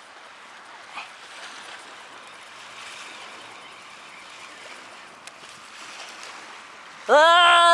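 Steady rushing noise of wind and sea water, with a faint click about a second in. A man's voice breaks in with a long, held call near the end.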